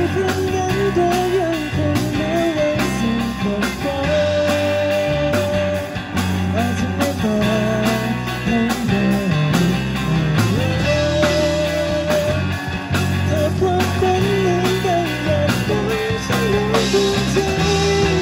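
Live rock band: a male singer's amplified vocal over electric guitars and a drum kit.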